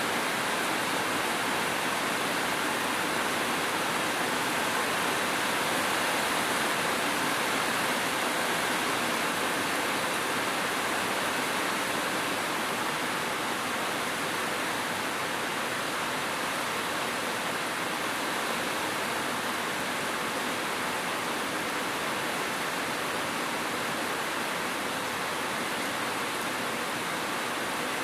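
Steady rainfall, an even hiss that keeps the same level throughout.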